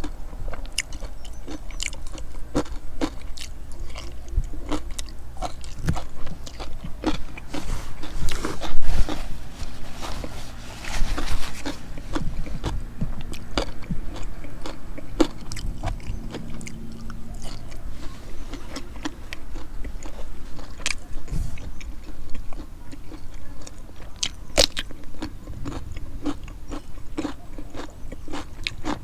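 A person eating close to the microphone: steady chewing with many small crunches and clicks, and a louder crunch about nine seconds in.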